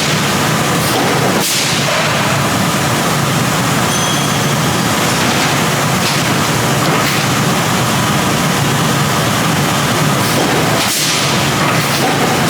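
Steady loud machinery noise from an automated robotic upset forging line, with a sharp clank about a second and a half in and another near the end.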